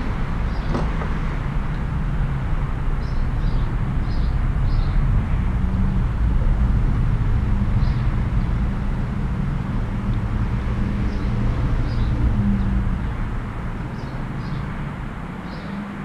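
Steady low rumble with a faint hum in it, and short high chirps now and then; the rumble eases off over the last few seconds.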